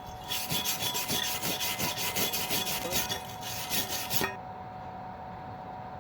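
Rapid back-and-forth scraping on metal, about three strokes a second, that starts just after the beginning and stops about four seconds in.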